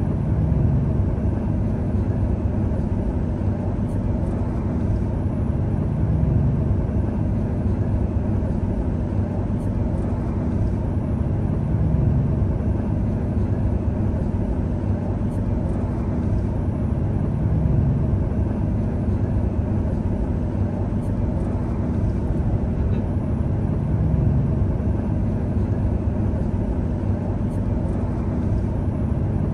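Komatsu PC200 excavator's diesel engine running steadily. It swells under load about every six seconds as the machine works through repeated dig-and-load cycles.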